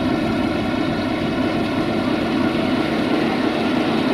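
An engine runs steadily at constant speed, its hum unchanged, while a belt conveyor pours grain into a railway hopper wagon.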